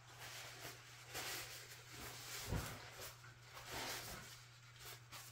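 Faint rustling and swishing of a paper towel being handled, several soft strokes with a small knock about two and a half seconds in, over a steady low hum.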